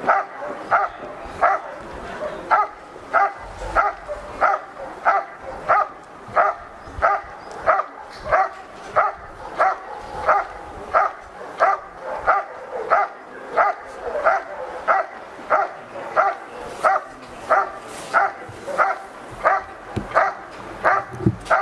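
A dog barking steadily and rhythmically at the helper in the hide, about one and a half barks a second: the hold-and-bark of a protection-work trial.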